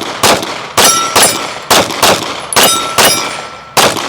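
9mm Glock 45 pistol fired in rapid pairs, about nine shots, each pair a third of a second or so apart, as the shooter transitions between targets. A struck steel plate rings after several of the shots.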